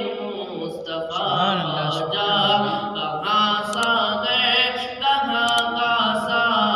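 A boy's solo voice reciting a naat unaccompanied into a microphone, holding long melodic notes that slide up and down.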